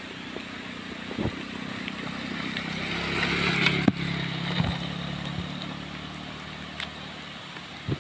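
A small motor scooter's engine running as it approaches and passes close by, with tyre hiss on the wet road. The sound grows to a peak about halfway through and then fades. A few sharp knocks come as it crosses the broken surface.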